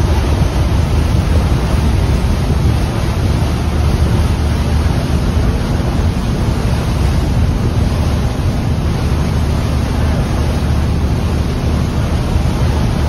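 Steady, loud drone of a Chao Phraya express river boat under way: its engine running at cruising speed under the rush of water along the hull, with wind buffeting the microphone.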